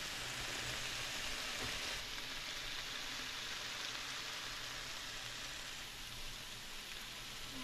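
Bacon strips frying in a skillet, a steady, even sizzle.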